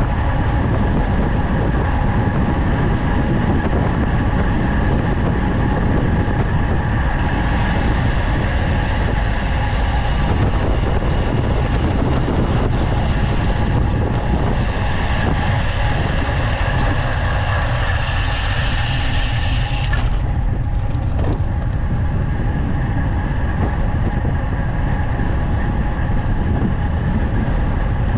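Steady wind rushing over the microphone together with tyre and road noise from a road bike descending at speed. A brighter hiss comes in about a quarter of the way through and drops away about two-thirds through.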